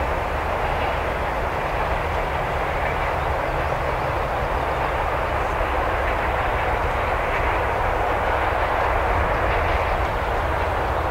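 Freight train rolling past: a steady rumble and rushing noise of wagon wheels on the rails, holding level throughout.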